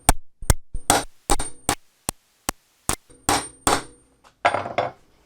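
Hammer blows on a hollow steel hole punch, driving it through a thick linen buffing wheel laid on a solid workbench. There are about a dozen quick strikes, some of them ringing metallically, with a short pause before a last few.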